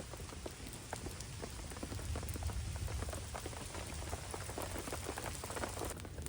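Steady rain falling, with many separate drops ticking irregularly over a continuous hiss.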